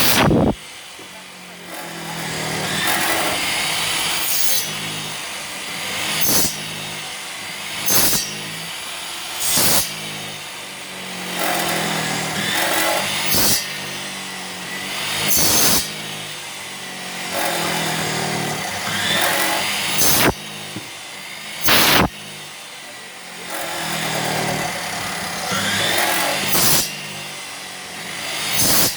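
Loud, short strikes repeating irregularly, about every one to two seconds, over a background of crowd voices.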